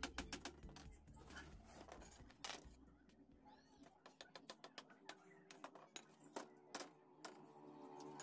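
Faint, irregular light taps and clicks of hand work on a bamboo slat panel.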